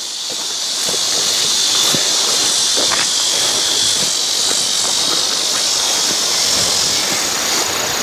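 A steady high-pitched drone of summer insects over an even hiss, with a few faint footfalls in grass.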